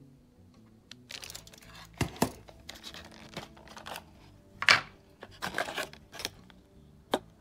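Clear plastic clamshell packaging around an M.2 SSD being flexed and handled: irregular crinkling and crackling, with several sharp snaps, the loudest about two-thirds of the way through.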